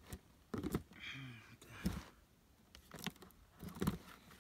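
A handful of knocks and clunks as a new chainsaw's plastic body is handled and shifted about on top of its cardboard box.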